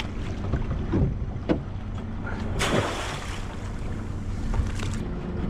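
A boat's motor running steadily on open water, with wind buffeting the microphone and a few knocks. About two and a half seconds in there is a short splash of water as a weighted crab trap goes over the side.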